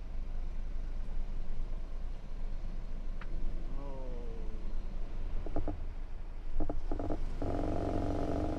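Semi-truck's engine idling with a steady low rumble, heard from inside the cab. A short falling squeal comes about four seconds in, and a louder buzzing tone sounds near the end.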